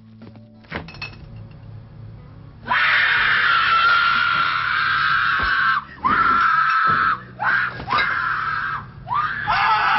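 A few soft clicks, then from about three seconds in, long high-pitched screams, one after another with short breaks, each sliding up at its start and then held.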